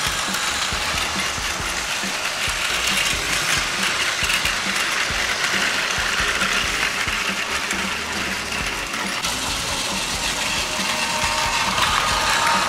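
Several battery-powered Plarail toy trains running on plastic track: a steady whir of small motors and gears with the clatter of wheels on the track.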